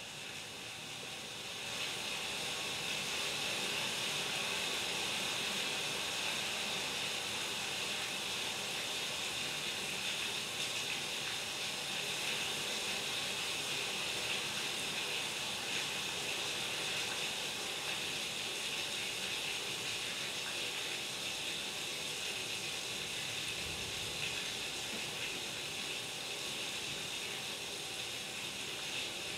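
A steady, high hissing noise from the live electronic score, coming in about two seconds in and then holding level.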